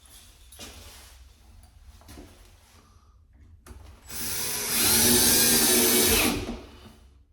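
Cordless drill/driver whirring for about two seconds as it drives a hinge screw into a hole packed with toothpicks, its pitch wavering as the screw bites. Light clicks and knocks come before it.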